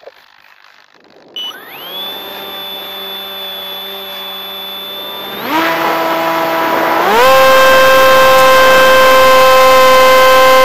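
Bixler v1.1 RC glider's electric pusher motor and propeller, heard from a camera mounted on the plane. It spins up about a second and a half in to a steady whine, jumps higher and louder about five and a half seconds in, then steps up again to a louder, steady full-throttle whine around seven seconds in as the plane takes off.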